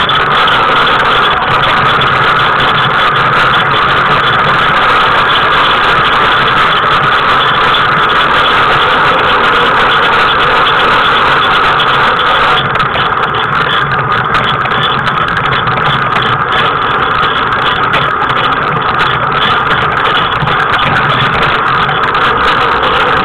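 Steady, loud road noise of a tricycle's wheels rolling over asphalt, with rattling and vibration of the frame carrying the camera. It eases slightly about halfway through.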